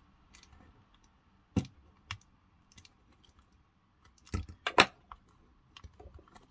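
Light, irregular clicks and taps of a small metal screwdriver prying at the plastic casing of a security camera's battery pack, with a louder clatter of clicks about four and a half seconds in.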